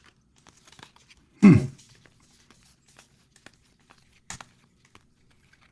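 Soft clicks and rustles of cards being handled and laid out on a table, with one sharper click about four seconds in. A short wordless murmur with falling pitch comes about a second and a half in.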